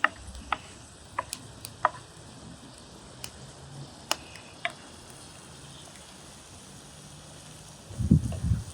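Food cooking in a pan: scattered sharp clicks and crackles over a faint steady hiss, then louder low knocking and scraping near the end as the pan is stirred.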